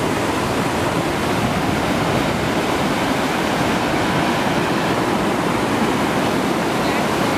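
Whitewater rapids rushing over and around boulders: a steady, loud rush of churning water with no breaks.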